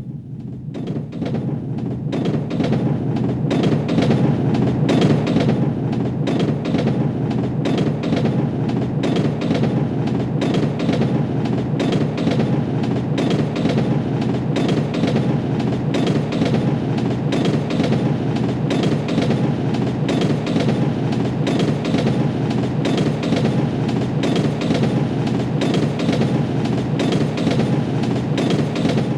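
Train running along the track: a steady rumble crowded with clicks from the wheels on the rails. It grows louder over the first few seconds, then holds steady.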